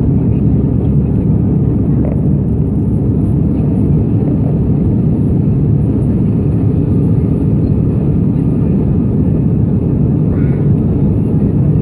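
Steady low roar of an airliner's jet engines and rushing air, heard inside the passenger cabin during the climb after takeoff.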